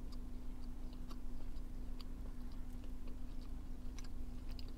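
A person chewing a mouthful of soft apple crisp donut, with faint, irregular mouth clicks, over a steady low hum.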